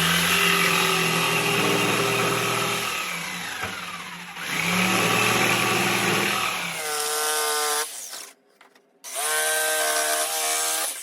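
Electric power saw cutting plywood in two long passes, the motor labouring under load, then running briefly twice near the end with a steady whine.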